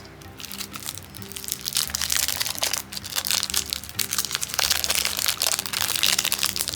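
Cellophane wrapping crinkling and crackling as it is pulled off a card deck, getting dense about two seconds in, over background music.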